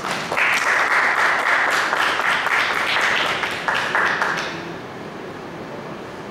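Audience applauding, the clapping starting about half a second in and fading out after about four seconds into steady room noise.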